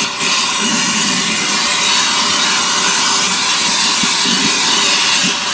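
Shop vacuum running steadily as its hose nozzle sucks up rubber dust from the freshly buffed area inside a tire, cleaning the surface before patch cement goes on.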